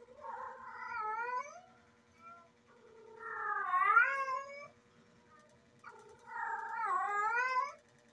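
A female domestic cat in heat yowling: three long wavering calls, each about two seconds, rising and falling in pitch, with short pauses between; the middle call is the loudest.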